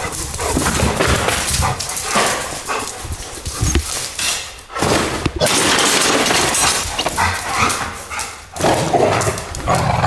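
Two dogs wrestling in play, barking and scuffling; they are playing, not fighting.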